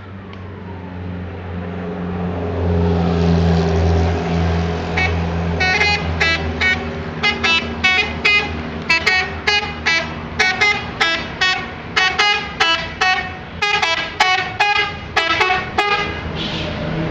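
A bus horn sounding in a fast series of short toots, roughly two a second, over the steady low running of the bus's engine, which grows louder a few seconds in before the horn starts.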